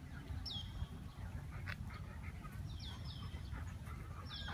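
Bird calls: a short, high whistle that falls in pitch, given four times, the middle two close together, over a steady low rumble.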